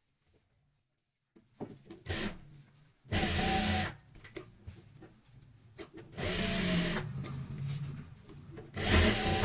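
Juki industrial sewing machine running in three short bursts of under a second each, stitching buckram to fabric, with the fabric being handled between runs.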